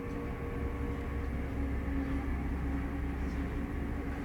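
Steady low drone of a car ferry's engines and machinery, heard inside the passenger cabin while under way, with a few even hums that hold one pitch throughout.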